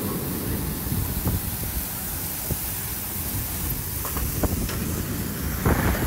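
Storm wind gusting with heavy wind-driven rain, the gusts buffeting the microphone with a low rumble under a steady hiss, and a few short knocks.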